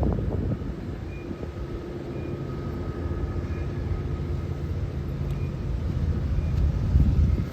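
CSX intermodal freight train passing, a steady low rumble of the train rolling by, with faint thin tones above it.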